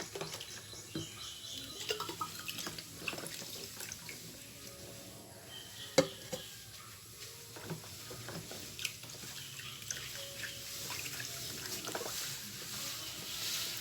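Water dripping and running at a sink, with scattered clinks and knocks of items being handled. The loudest is a sharp knock about six seconds in, and a hiss of water grows louder near the end.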